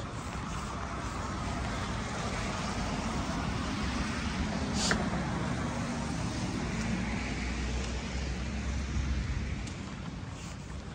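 Road traffic on a town street: a vehicle's low rumble swells and then falls away near the end, with one sharp click about halfway through.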